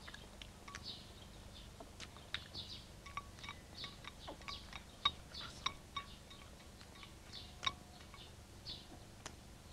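Faint light clinks and taps of tableware, chopsticks and dishes during a meal, scattered irregularly, over soft chirping that repeats about once or twice a second.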